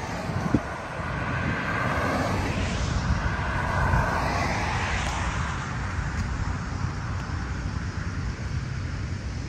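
Road traffic: cars passing close by on a multi-lane road, two swells of tyre and engine noise that rise and fade in the first five seconds, over a steady low rumble.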